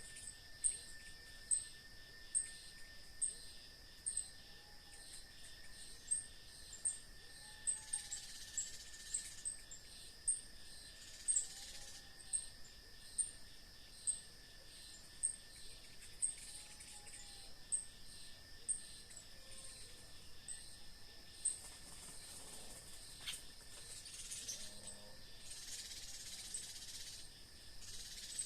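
Countryside chorus of insects and birds: a steady high insect drone, a sharp high chirp repeating about once or twice a second, and faint rising-and-falling calls every couple of seconds.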